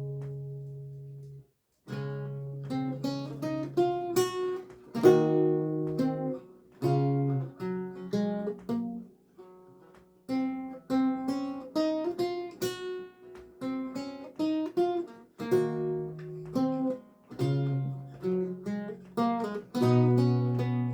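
Solo lute music: plucked melody notes and chords that ring and fade over a low bass line, with a brief break about a second and a half in.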